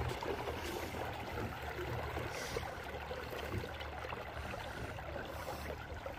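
Water trickling and lapping along the hull of a small boat gliding over a calm lake, over a steady low hum.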